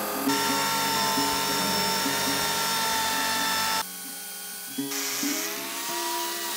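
Handheld electric rotary polisher with a felt buffing pad running at speed, a steady high whine, over background guitar music. After a cut a little past halfway, the polisher's whine returns quieter and slides slightly lower in pitch as it works against the metal panel.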